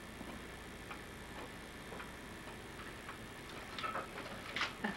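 Quiet room tone with faint, scattered ticks, and a couple of brief faint sounds near the end.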